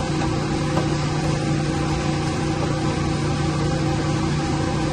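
Steady hum of running machinery: a constant low drone with a few fainter steady tones above it, unchanging throughout.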